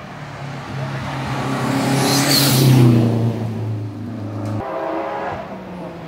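Hill-climb race car at full throttle, its engine growing louder as it comes by, loudest about two and a half seconds in. About four and a half seconds in the engine note drops suddenly and picks up again at a new pitch, as at a gear change.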